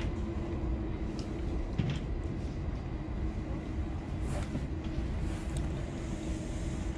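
Steady low motor rumble with a constant hum running under it, and a few faint light ticks.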